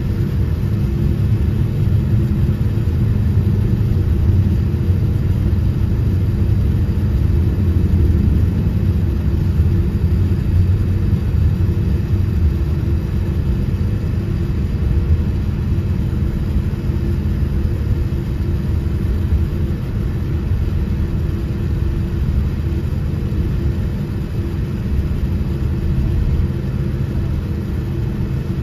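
Cabin noise in a Boeing 787-10 taxiing: a steady low rumble from the engines at low thrust and the airliner rolling on the ground, with a faint steady hum over it.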